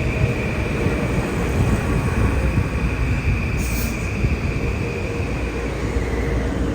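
A train running past on the rails at speed: a steady heavy rumble of wheels on track with a sustained high ringing tone from the wheels and rails that fades near the end, and a brief hiss a little past the middle.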